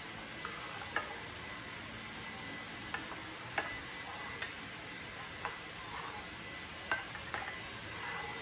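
Knife clicking and scraping against a ceramic plate while cutting a thin egg omelette into strips: sharp, irregular clicks about once a second over a steady background hiss.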